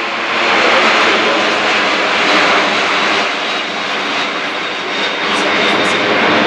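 Loud, steady jet noise from a four-engined Airbus A380 passing low overhead. It swells about a second in and again around two and a half seconds in.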